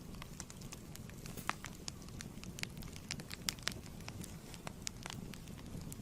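Wood fire in a fireplace crackling and popping irregularly over a steady low rumble of the flames.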